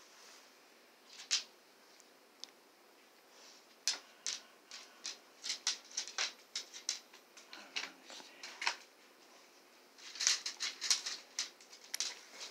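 Small plastic parts of a plastic mesh aquarium screen lid being handled, giving irregular light clicks and rattles that come in clusters, thickest midway and again near the end.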